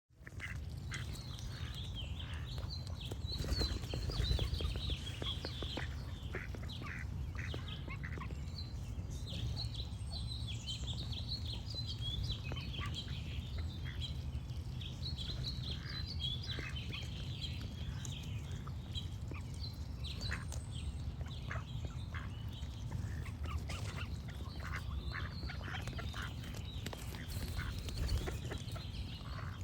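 Ducks quacking in short, repeated calls, with small birds singing high chirping phrases over a steady low rumble.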